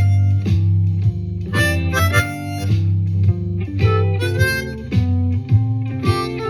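Blues harmonica, a C diatonic harp played in second position in G, playing short licks over a shuffle backing track with guitar and a steady bass line.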